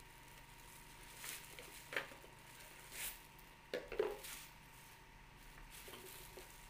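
Clear plastic packaging wrap crinkling and rustling in short bursts as it is pulled off by hand, with a light knock of a handled part about four seconds in.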